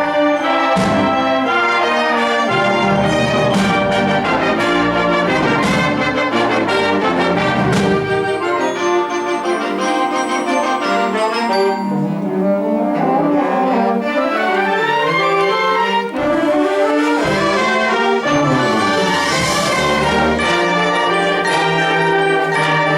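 Youth concert band playing live, brass to the fore, with sharp percussion strikes through the first several seconds and a cymbal-like shimmer swelling up about twenty seconds in.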